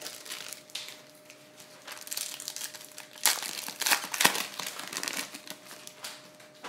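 The wrapper of a Topps Finest baseball card pack crinkling and tearing as it is ripped open by hand. It is loudest about three to four seconds in, with one sharp crack.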